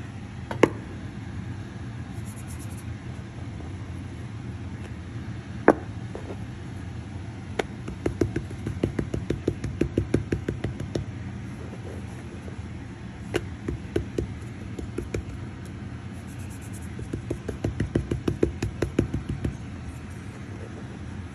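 Hands patting and pressing soft wheat-and-bottle-gourd dough flat on a wooden cutting board: a couple of single sharp taps, then three runs of quick taps, several a second. A steady low background rumble runs underneath.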